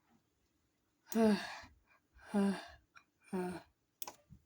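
Three short wordless vocal sounds, such as gasps or cries, each about half a second long and about a second apart, with a few faint clicks near the end.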